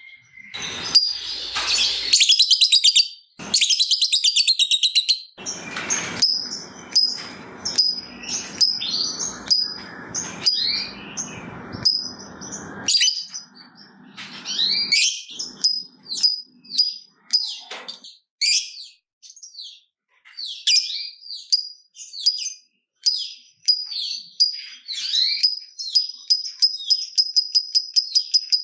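Lovebird chattering: high, varied chirps and squeaks broken by fast, rattling runs of ticking notes, the 'ngetik' and 'ngekek' song that keepers use to set other lovebirds singing. Near the end it settles into a steady run of sharp ticks, about five a second.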